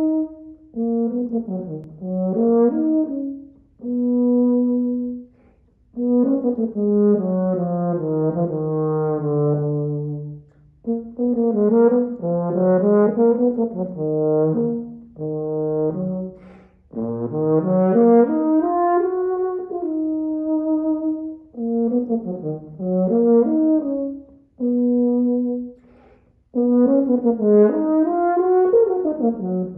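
Solo euphonium playing a mazurka melody unaccompanied, in phrases broken by short pauses for breath, dipping to a low held note about ten seconds in.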